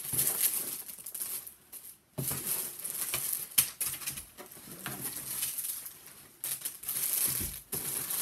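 Jewelry being rummaged through by hand: irregular rustling and light clicks, briefly pausing about two seconds in, with a sharper click about three and a half seconds in.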